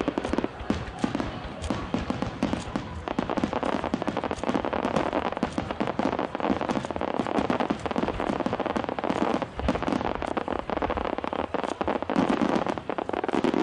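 Starmine fireworks barrage: aerial shells bursting in rapid, continuous succession, a dense string of bangs and crackle with no break.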